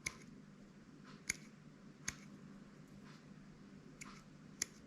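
Small fishing pliers' scissor blades snipping fishing line: a handful of short, crisp snips at uneven intervals, two close together near the end.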